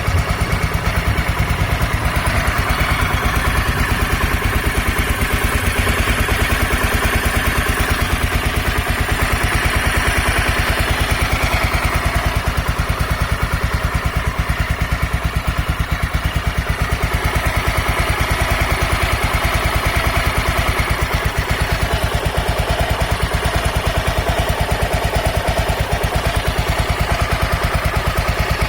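Honda NX250 Dominator's single-cylinder four-stroke engine idling steadily with an even, fast beat. The tensioner has been dealt with, and the owner believes that this was the source of its earlier noise.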